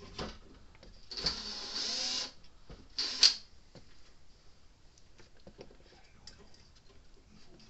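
Soldering work on a fence charger's circuit board: two short hissing bursts, the first about a second long and the second shorter, with light clicks in between.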